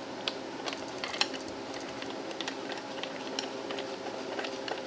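Brass lamp socket base being unthreaded by hand from the lamp's threaded center rod: scattered light metallic ticks and clicks from the brass parts, over a steady background hum.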